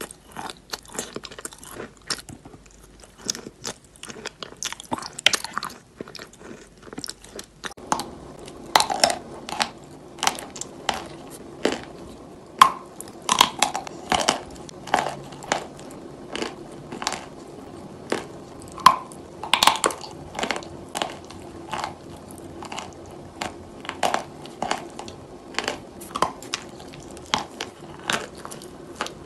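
Close-miked eating of soft chalk paste: repeated crunchy bites and wet chewing, with sharp crunches about once or twice a second.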